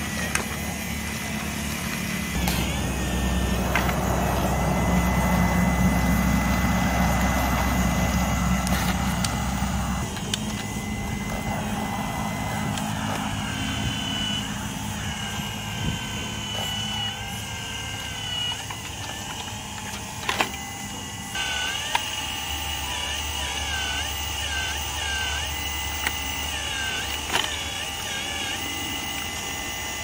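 Radio-controlled hydraulic excavator working. Its electric pump and motors give a steady low hum with a whine above it, and the whine dips and rises in pitch as the arm moves. A few sharp clicks and clanks come through, louder for about a second around the middle.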